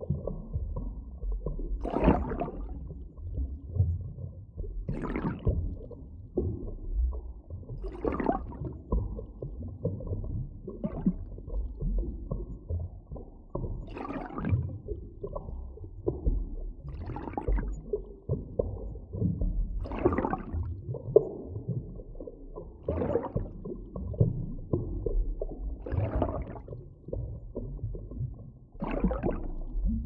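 Underwater water ambience: a steady low rumble with gurgling, bubbling surges that swell up about every three seconds.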